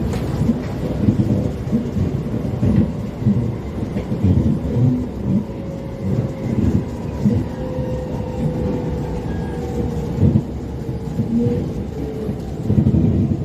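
SMRT R151 metro train running between stations, heard inside the car: a heavy low rumble with irregular thuds from underneath, which the uploader suspects comes from the wheels, over a faint motor tone that sinks slightly.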